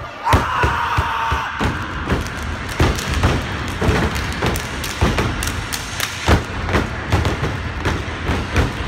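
Step team stepping in unison: stomping feet on a wooden stage floor with hand claps and body slaps, a fast, uneven rhythm of sharp thuds and claps.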